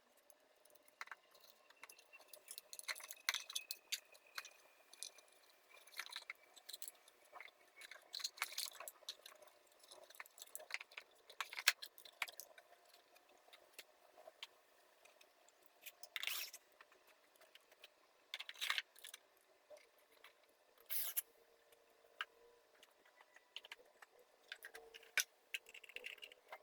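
Faint, irregular clicks, taps and short scrapes of plastic feeder parts and small hardware being handled during disassembly of a squirrel-resistant bird feeder.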